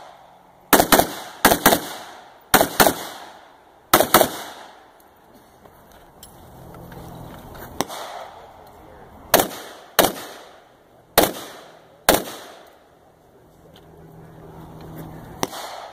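Carbine gunshots: four quick pairs of shots in the first four seconds, then single shots about a second apart, and one last shot near the end, each followed by a short echo.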